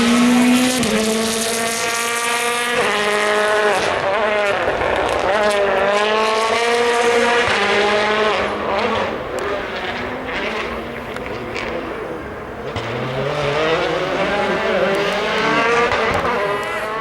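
Rally car engine revving hard, pitch climbing then dropping sharply several times as it shifts gears under acceleration. Sharp cracks come through the middle, while the engine note falls back off throttle.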